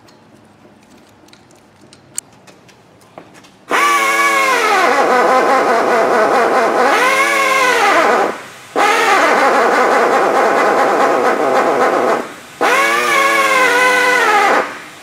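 Pneumatic right-angle air drill drilling through a guide template into a broken exhaust manifold bolt on a Ford V10 cylinder head. It starts about four seconds in and runs in three long bursts, a whine over air hiss whose pitch rises and sags as the bit bites and loads up.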